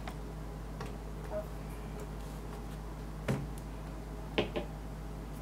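Mechanical keyboard plate-and-PCB assembly being handled and set into its case: a few light plastic clicks and taps, the loudest a knock about three seconds in, then two quick clicks about a second later, over a steady low hum.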